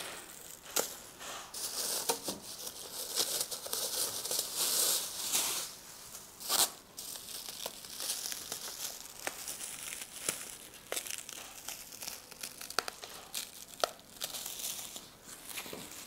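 Clear plastic protective wrap crinkling and tearing as it is cut with scissors and pulled off, a steady crackle of small rustles with one louder crackle about six and a half seconds in.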